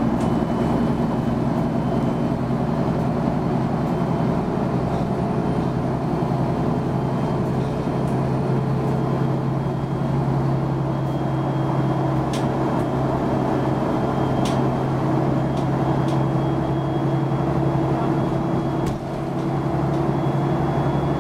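Mercedes-Benz Citaro G articulated bus's OM 457 hLA six-cylinder diesel running steadily, heard inside the passenger cabin, with a few sharp interior rattles.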